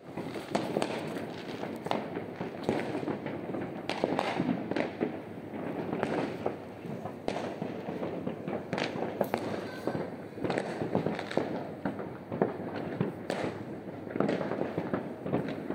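Many fireworks going off at once: a dense, irregular run of bangs and crackles with no break, over a constant rumble of more distant bursts.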